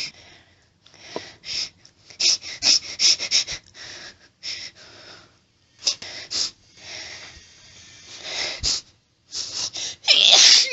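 A woman's hitching breaths as a sneeze builds while she tries to hold it back: short, sharp, breathy intakes and sniffs in irregular clusters, several in quick succession, with brief pauses between. Near the end comes a louder, longer breathy burst that ends with a falling voiced sound.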